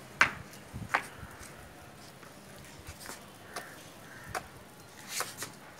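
Small plastic wheels and frame of a child's push-along tricycle rolling over rough concrete: irregular light clicks and rattles, about six over the few seconds, with a faint scraping between them.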